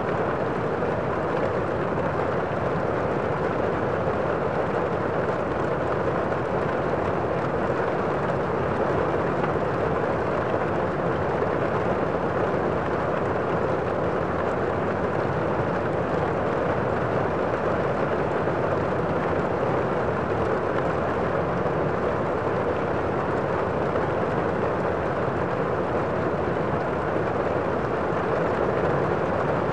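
A steady, unchanging rushing noise with no separate events and no rise or fall in level.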